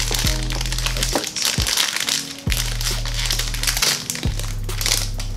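Silver foil blind-box bag crinkling as it is crumpled and pulled open by hand, over background music with a steady beat and bass line.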